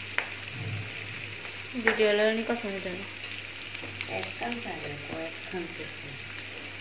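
Hot oil sizzling steadily in a frying pan of onions, scrambled egg and fried chicken, with slit green chillies just added, and a single sharp tick just after the start. A person's voice is heard briefly about two seconds in and again between four and five seconds.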